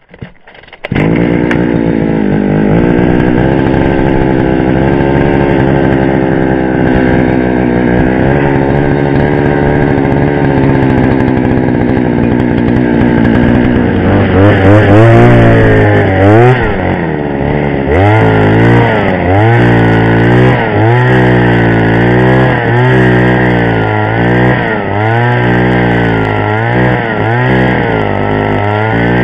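Petrol ice auger's small two-stroke engine starting up about a second in and running at an even speed. About halfway through, it revs up and down over and over as the bit bores a hole through the ice.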